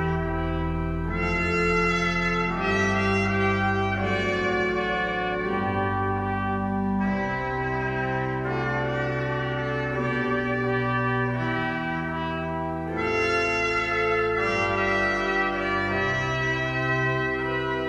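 Trumpet playing a melody in long held notes over a pipe organ's sustained chords and low bass notes.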